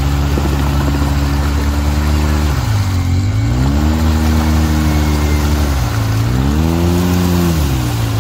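Off-road 4x4's engine running hard, its revs dipping and climbing back up twice, then dropping again near the end.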